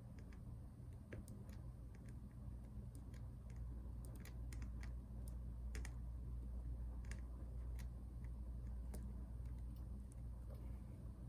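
Scattered, irregular light clicks and taps of small tools and parts being worked on a MacBook Pro keyboard, over a steady low hum.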